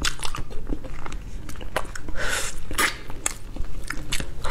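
Close-miked chewing of braised pig's trotter: sticky, wet smacks and sharp clicks of lips and gelatinous skin, with a couple of louder squelchy bites about halfway through.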